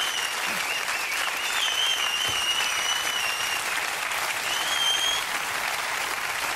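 Studio audience applauding steadily, with long wavering high whistles on top three times.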